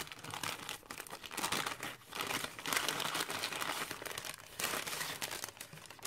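A striped paper gift bag being unfolded and opened by hand, its paper crinkling and rustling unevenly.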